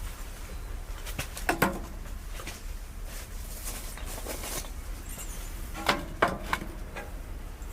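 A few sharp knocks and clatters of things being handled, in two clusters about a second and a half in and about six seconds in, some with a brief ringing tone, over a faint steady low hum.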